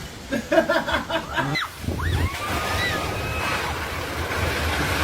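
Storm wind rushing steadily, sounding like surf, and swelling louder near the end. Brief voices come in the first second or so, and a few short whistle-like rising and falling sounds come a little after two seconds in.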